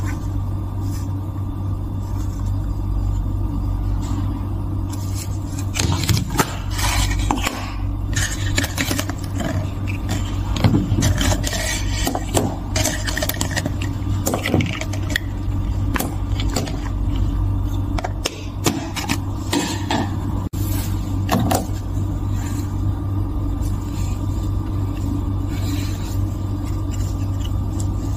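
Plastic icing tubes, their cardboard canister and its metal lid handled and set down on a stainless steel counter: scattered scrapes, taps and rustles, busiest in the middle, over a steady low hum.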